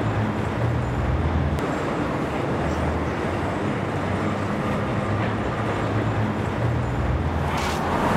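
Steady low rumbling outdoor background noise, with brief rustling hisses near the end.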